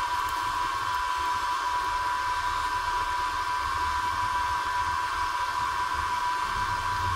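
Steady machine whine over a hiss, holding one pitch with no clicks or knocks.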